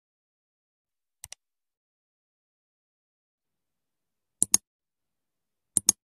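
Mouse-click sound effects over dead silence, each a quick double click: a faint pair about a second in, then two louder pairs at about four and a half seconds and near the end.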